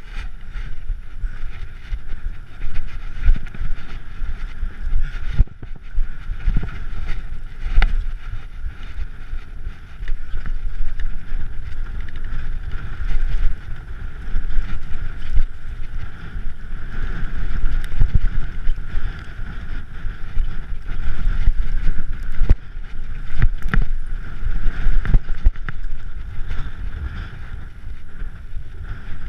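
Mountain bike ridden over a rough, rocky trail: a continuous low rumble from the tyres, with many irregular knocks and rattles as the bike hits stones, and wind noise on the microphone.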